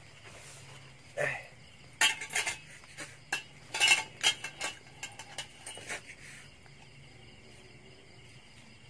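A run of sharp clinks and scrapes against a small ceramic bowl as grilled rabbit meat is dipped and stirred in lime-chili salt, clustered between about two and six seconds in. Crickets chirr steadily in the background.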